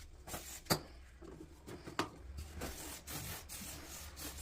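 Rubbing and handling noises with two sharp clicks, about 0.7 and 2 seconds in, over a low steady hum.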